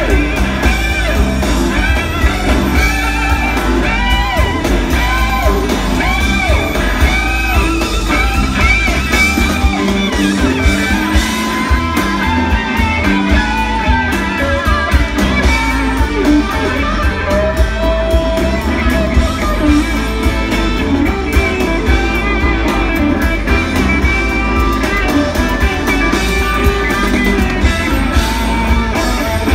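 Live rock band jamming, heard from far back in the crowd: electric guitar leads that bend and slide in pitch over a heavy bass line and drums.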